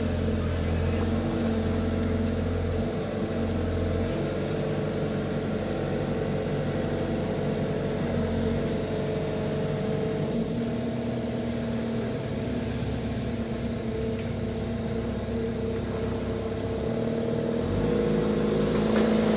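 Kato HD450 long-reach excavator's diesel engine running steadily under hydraulic load as the boom swings and the bucket digs, its note shifting and growing louder near the end as the bucket is raised. Faint short high chirps repeat over it.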